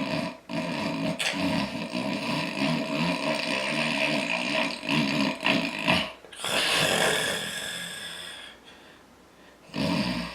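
A man snoring loud: one long, rough snore, then a breathy, higher-sounding breath that fades away, with the next snore starting near the end.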